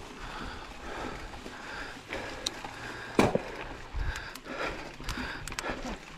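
Mountain biker breathing hard in an even rhythm, with a few knocks and clicks from the bike on the rough trail, the loudest about three seconds in.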